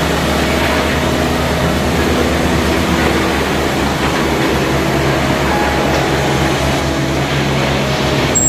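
Belt conveyor running steadily inside a refrigerated trailer, loading loose carrots that tumble off its end onto the pile, with a low mechanical hum under the rattle.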